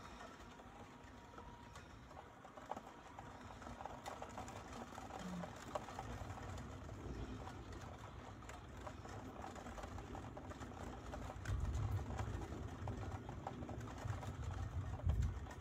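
Distant thunder rumbling low, swelling about twelve seconds in and again near the end.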